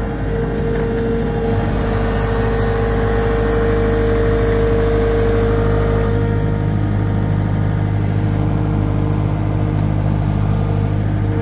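Skid steer engine running steadily at a constant speed, with a steady hum.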